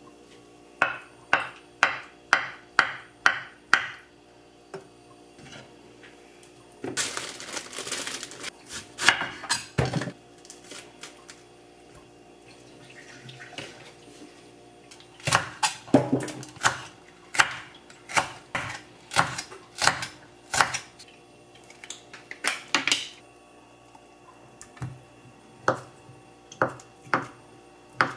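Kitchen knife chopping on a wooden cutting board: a quick run of about eight strikes, a few seconds of rustling, another long run of chops, then slower single cuts near the end.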